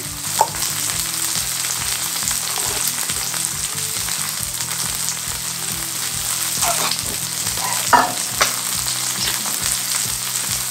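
Slices of pork belly sizzling as they fry in a hot pan, a steady frying hiss with a couple of brief sounds near the middle.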